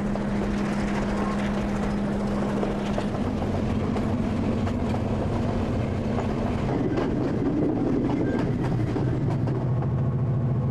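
Diesel-hauled passenger train running along the line: a steady engine drone over rail and wheel noise. The drone shifts to a lower pitch about three seconds in.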